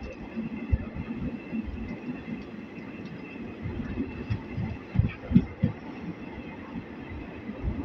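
A passenger express train running, heard from on board: a low, uneven rumble with irregular thumps, the loudest a cluster about five seconds in.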